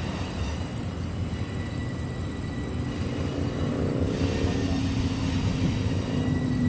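Diesel cab-unit locomotive approaching, its engine drone growing steadily louder. A steady low hum comes in about halfway and strengthens as it nears.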